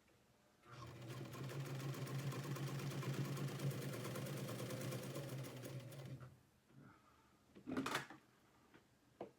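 A 1956 Morse TZ-5 sewing machine runs steadily at speed with a fast, even stitching rhythm for about five seconds, then stops. It is driven from its foot pedal, and the test counts as a success. A sharp knock follows about two seconds later, with a small click near the end.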